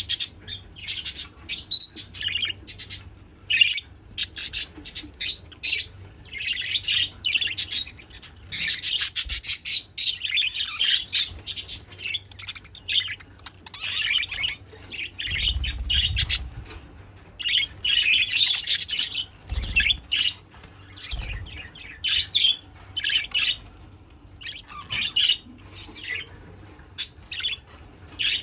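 Budgerigars chattering: rapid chirps, warbles and squawks in a dense, continuous stream, with a few low thumps about halfway through.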